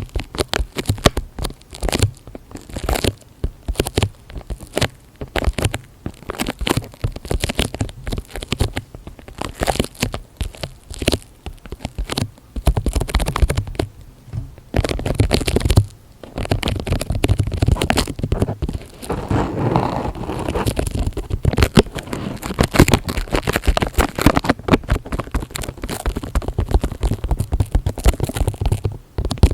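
Close-miked ASMR trigger sounds: dense, rapid crackling, clicking and scratching, thickening into fuller crinkly rustling in two stretches around the middle.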